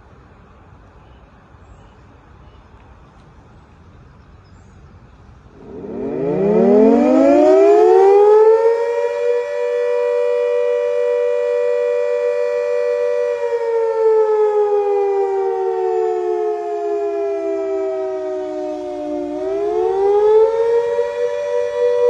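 Fire brigade siren starting up about six seconds in, winding up in pitch to a steady wail. It holds, then slides slowly down, and winds back up again near the end. Before it starts there is only faint background noise.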